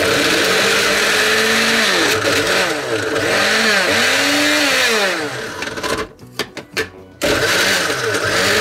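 Countertop blender motor running on chunks of raw vegetables, its pitch swooping up and down as the blade load changes. It stops about six seconds in, gives a few short pulses, then runs again. The vegetables are not being drawn down into the blade to be puréed.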